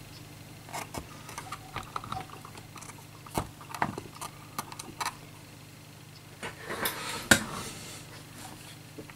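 Light clicks and taps from handling a Fluke 289 multimeter and pressing its keypad buttons, coming irregularly and loudest a little after seven seconds in, over a faint steady hum.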